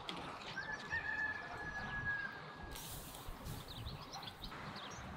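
A rooster crowing once: one long, held call that falls slightly at its end. It is followed by about two seconds of hiss.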